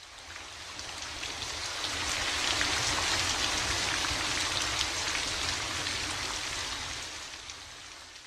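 Steady rain falling, a fine hiss of many small drops pattering, swelling in over the first few seconds and fading out near the end.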